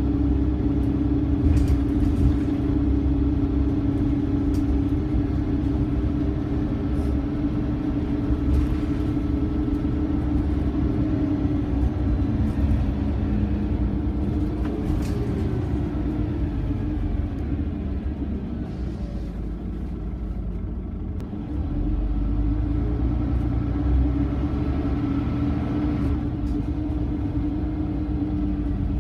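Inside a Scania OmniCity single-deck bus under way: the rear-mounted diesel engine's steady drone and whine with road rumble. The engine note slides down and back up midway, drops quieter for a few seconds about two-thirds through, then picks up again as the bus pulls on.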